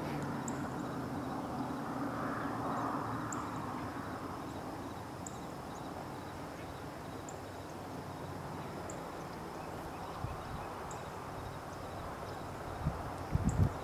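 Outdoor background noise with a faint high chirp about once a second and a thin steady high hum, and a few low bumps near the end.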